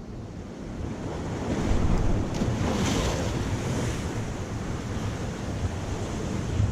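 Sea surf washing against shore rocks, one wave surging up about two seconds in and easing off, with wind buffeting the microphone in a low rumble throughout.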